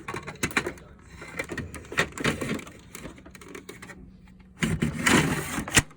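Lexmark E250dn laser printer and its paper tray being handled: scattered plastic clicks and knocks, then a louder sliding rasp about five seconds in that ends on a sharp knock.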